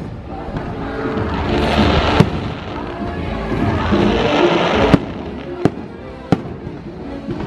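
Fireworks bursting overhead: a sharp bang about two seconds in, then three more in quick succession about five, five and a half and six and a half seconds in. Music plays underneath.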